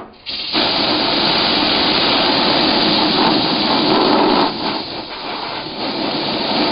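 Compressed air blowing in a long steady hiss onto fresh CA glue to speed its cure. The hiss eases off for about a second halfway through, then picks up again.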